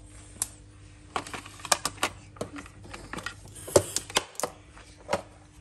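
Plastic lunch boxes being opened by hand: latches snapping and lids clacking against the boxes and the countertop, a string of sharp, irregular clicks and knocks.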